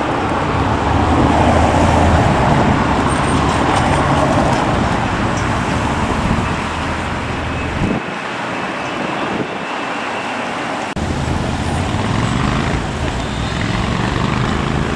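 Street traffic noise: a steady wash of passing vehicles with a low engine rumble. The rumble drops away for about three seconds just past the middle, then returns.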